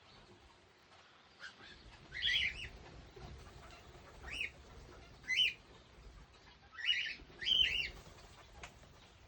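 Small pet parrots in an aviary giving short, sharp chirping calls, about five in all, the last two close together.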